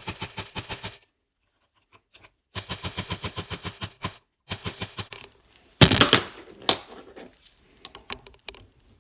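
Rapid light metal-on-metal tapping, about eight strikes a second in several short bursts, as a brass punch is hammered against the race of a Subaru STi outer CV joint to free its ball bearings. A loud metallic clatter about six seconds in.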